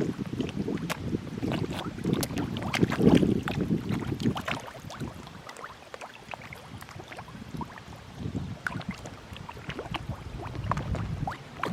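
Many koi splashing and slurping at the surface as they take feed: a dense patter of small splashes and pops over heavier surges of churning water. The splashing eases off in the middle and builds again near the end.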